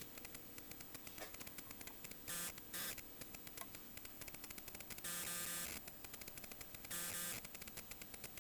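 Faint crackle of rapid clicks with several short bursts of hiss, from the camera being handled and moved.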